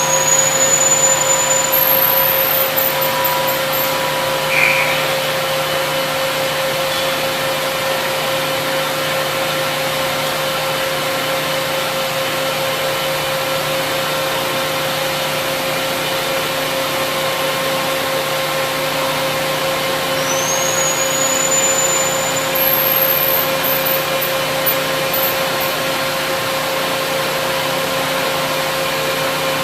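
SNK CNC gantry profiler running under power with a steady machine hum. Twice, at the start and about twenty seconds in, a high whine rises and then holds steady, as a spindle spins up to speed.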